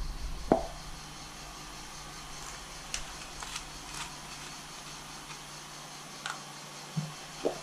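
Light plastic handling sounds: a sharp tap about half a second in, a few small clicks as a screw cap is twisted off a plastic bottle, and two dull knocks near the end as the cap and jug are handled, over a steady hiss.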